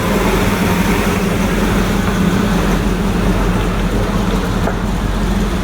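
A car engine running steadily at close range, with a steady low hum under a loud, even rush of noise.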